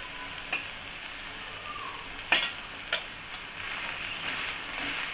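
Onion dosa sizzling in oil on a hot griddle, a steady frying hiss. A few sharp clicks sound over it, two of them close together about two seconds in.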